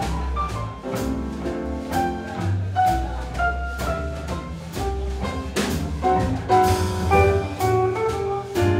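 Small swing jazz combo playing live: grand piano and archtop electric guitar over a double bass line and a steady swing beat on the drum kit.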